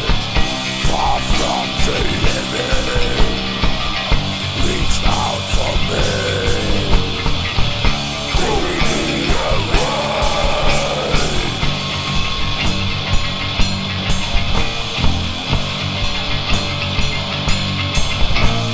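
Metal band playing a full-band passage: distorted guitars, bass and drums, with a wavering melodic line over the top for the first ten seconds or so, then steady cymbal strokes about twice a second.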